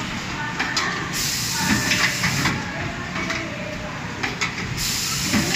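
Automated paintbrush-making machines running, with two long hisses of compressed air, one starting about a second in and another near the end.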